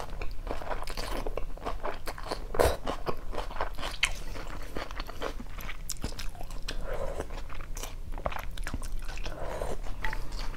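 A person chewing a mouthful of phở noodles, with wet mouth sounds and many short clicks throughout, and one louder click about two and a half seconds in, while chopsticks and a spoon stir in a glass bowl.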